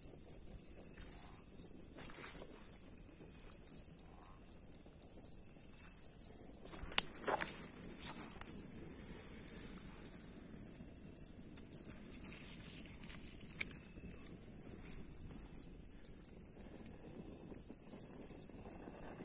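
Night insects, crickets among them, trilling steadily in a high, fast-pulsing chorus. Scattered faint ticks run through it, with one sharp snap about seven seconds in, the loudest sound.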